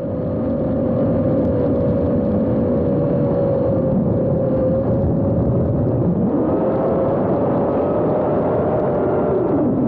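FPV racing quadcopter's brushless motors running with a steady buzzing whine. The pitch shifts slightly up and down with the throttle, rising a little about six seconds in.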